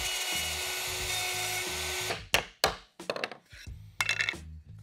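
Plunge router with a bit and guide bushing cutting dovetails through a dovetail jig template, running steadily, then cutting off sharply about two seconds in. A couple of sharp knocks follow.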